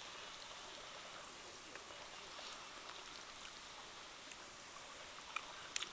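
Faint steady background hiss of open-air ambience, with a few light clicks near the end.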